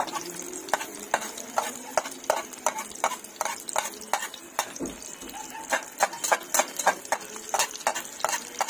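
Egg-topped eggplant frying in hot oil in a metal pan: a steady sizzle with many irregular crackling pops of spattering oil.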